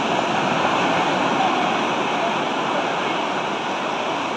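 Ocean surf breaking and washing through shallow water, a steady rushing hiss.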